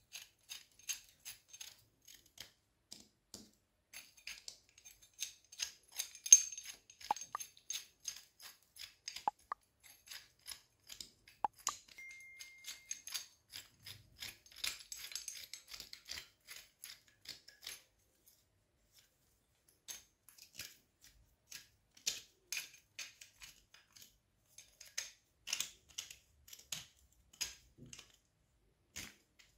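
Rusty pipe wrench worked by hand: a run of small metallic clicks and scrapes as the knurled adjusting nut is turned and the hook jaw slides out, with a short break a little past halfway.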